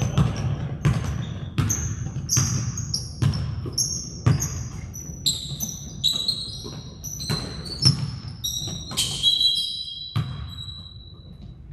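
A basketball being dribbled on a gym floor, bouncing steadily at a little over one bounce a second, with many short sneaker squeaks. A longer squeak comes near the end as the bouncing stops.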